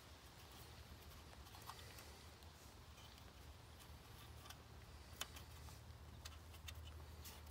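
Near silence: faint clicks and taps of hands handling a plastic car taillight assembly, the sharpest about five seconds in and near the end, over a low steady rumble.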